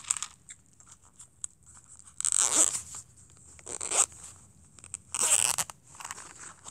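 Zipper of a small black fabric case being pulled open in three short pulls, a second or so apart, with a few faint handling clicks before the first.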